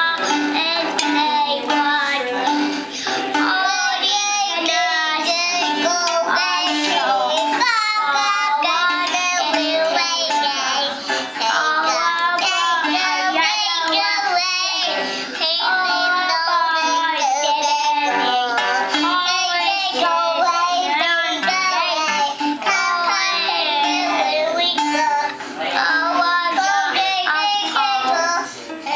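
A toddler singing over music from a battery-powered toy electronic guitar, with a small ukulele being strummed. The singing wavers in pitch and carries on almost without a break.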